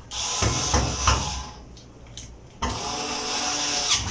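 Cordless electric screwdriver running as it tightens screws into the support bracket of a clothes dryer's drum. It runs in two bursts of about a second and a half each, the second starting about two and a half seconds in.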